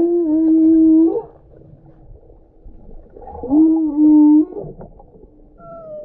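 Humpback whale song: two long, low moans, each about a second long, that scoop up in pitch at the start and then hold steady, about three seconds apart, with fainter calls between them.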